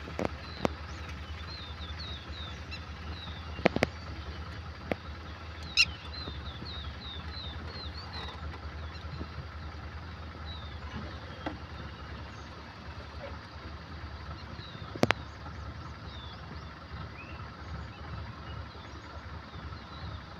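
Birds chirping in runs of short, quickly repeated high notes over the steady low hum of an idling vehicle engine, with a few sharp clicks.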